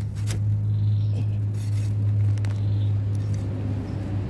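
A knife blade scraping and knocking into dry clay soil a few times, over a steady low hum like a motor running nearby.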